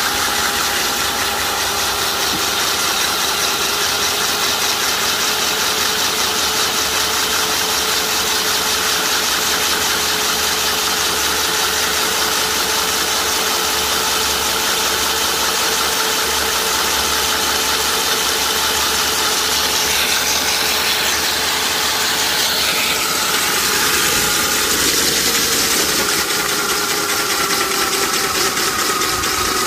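Electric stand-mounted core drill running under load, its large wet diamond core bit grinding down through asphalt: a steady motor whine over a dense grinding noise. The pitch wavers and shifts slightly about two-thirds of the way through as the load on the bit changes.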